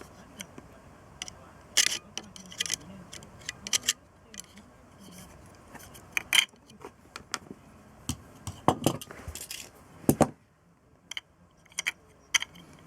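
Small metal parts and tools clinking and tapping against each other and the work surface, a string of irregular sharp clicks, as motorcycle carburettors are taken apart for cleaning.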